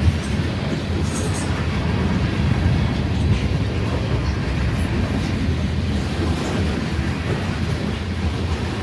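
Grain train rolling slowly past a road crossing: a steady low rumble of freight cars on the rails.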